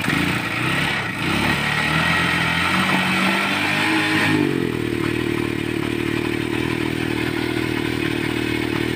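Euro Daan Hari 186 motorcycle engine running just after being started, uneven at higher revs for about four seconds, then dropping to a steady idle. The bike is one that has been hard starting.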